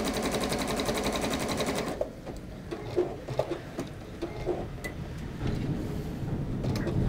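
Juki sewing machine running a straight basting stitch, a rapid, even stitching rhythm that stops abruptly about two seconds in. After that there are only a few light clicks.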